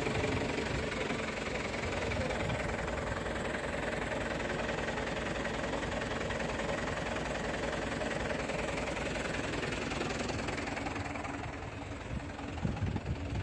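Dump truck's diesel engine running steadily at idle.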